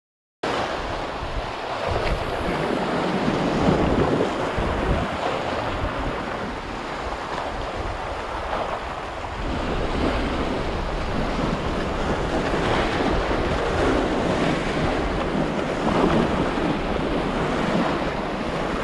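Sea waves washing and surging over a rocky reef shore: a steady wash that swells and eases every few seconds.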